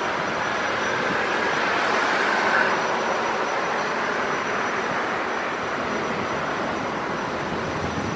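Steady jet aircraft noise: an even rushing hiss with a thin high whine held throughout, and a mid-pitched band that swells about two and a half seconds in, then eases.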